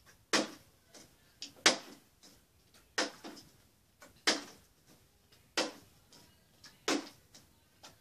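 Partly filled plastic water bottle flipped over and over, landing on a wooden dresser top with a sharp thud about every 1.3 seconds, six times, with fainter knocks in between.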